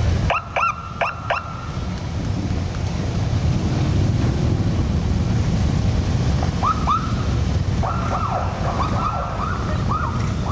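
Police motorcycle sirens giving short whooping chirps, a quick cluster of about three near the start and a run of repeated chirps in the second half, over the steady low rumble of the motorcycles' engines rolling past.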